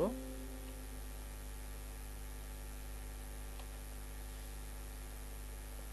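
Steady electrical mains hum picked up by the recording microphone, with one faint click about halfway through.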